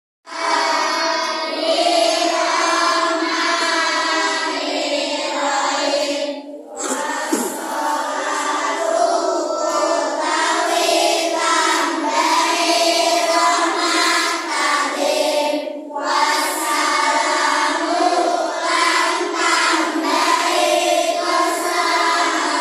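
A roomful of children's voices chanting together in unison in a sing-song recitation, with short breaks for breath about six and sixteen seconds in.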